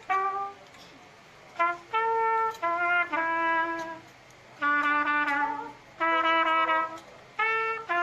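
A single brass horn, trumpet or bugle, playing a slow march tune in short phrases of held notes with brief pauses between them.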